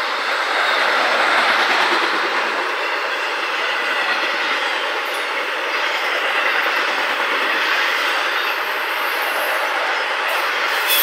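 Intermodal freight cars rolling past on steel wheels: a steady noise of wheels on rails, with a faint steady tone running underneath.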